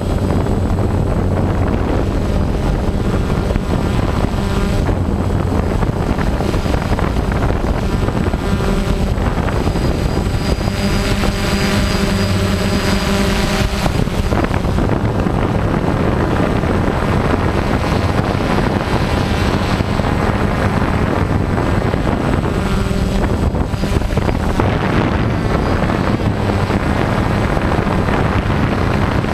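Multirotor drone's motors and propellers running steadily, heard from the drone's own camera: a constant loud buzzing hum with a thin high whine, its tone shifting for a few seconds about halfway through.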